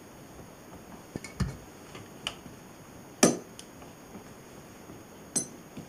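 A few scattered light clicks and knocks of plastic from the Agfa Rondinax developing tank as its yellow handle is turned, with a sharper knock about three seconds in as the measuring cylinder is set down on the table.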